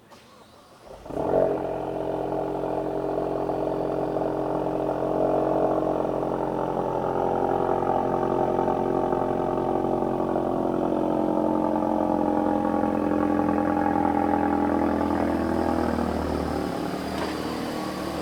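Car engine starting about a second in, then running steadily with its pitch holding nearly level, easing off near the end.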